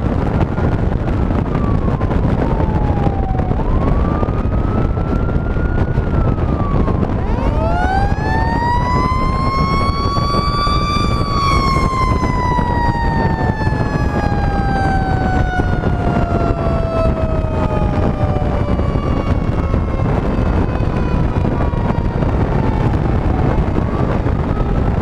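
Fire engine siren winding up to a high wail about eight seconds in, peaking a few seconds later, then slowly winding down over the next several seconds. A fainter wail siren rises and falls every few seconds throughout, over steady wind and road rush on the truck-mounted microphone.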